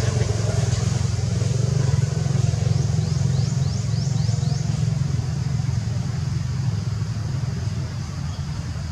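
A steady low mechanical drone, engine-like, running at an even level. About three seconds in comes a quick run of about six short high chirps.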